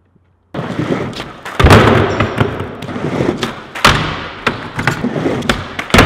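Skateboard wheels rolling on a wooden mini ramp, starting suddenly about half a second in. Sharp thuds and clacks of the board and trucks hitting the ramp and metal coping come at about a second and a half, near four seconds and again near five and a half.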